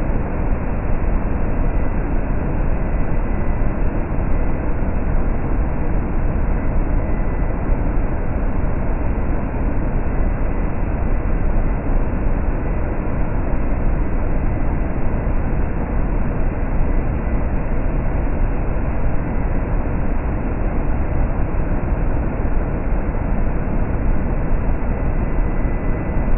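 Cold-rolled steel strip line running: a loud, steady machinery rumble with a faint, constant high whine over it.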